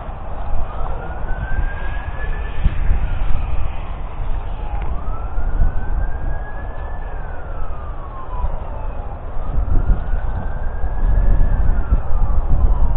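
A siren-like wail rising and falling slowly, one cycle about every four seconds, over a low unsteady rumble.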